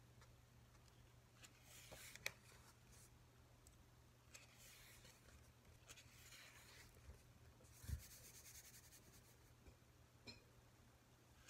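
Quiet room tone with faint, intermittent rustling and handling noises, a sharp click a couple of seconds in and a soft thump near the end.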